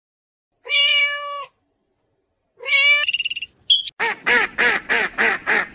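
Two drawn-out animal calls, each just under a second long, then from about four seconds in a quick run of short repeated calls, about four a second.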